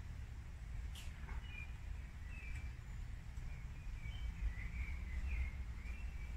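Small birds chirping and twittering faintly over a steady low background rumble, with a single sharp click about a second in.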